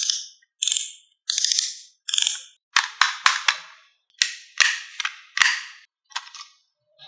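Marbles clacking down a HABA marble run: an irregular series of about a dozen sharp clacks, each with a short rattling tail, thinning out and fainter near the end.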